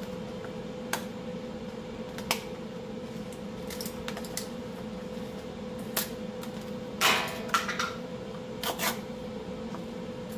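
Scattered clicks and knocks of plastic seasoning shaker bottles being handled, their lids opened and closed, with a brief shaking rustle about seven seconds in. A steady low hum runs underneath.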